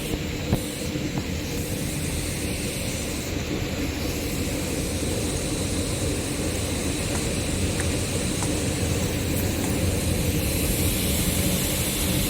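Rubber hose production line machinery running: a steady industrial drone and hiss with a low hum and a faint high steady tone, and one small click about half a second in.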